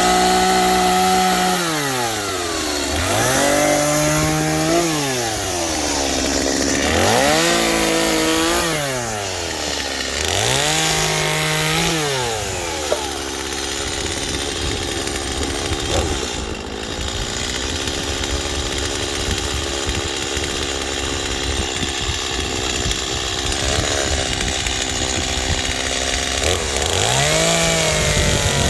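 Chainsaw revving up and bogging down in about four short cuts through sticks of firewood, running more steadily for a stretch midway, then revving up again near the end.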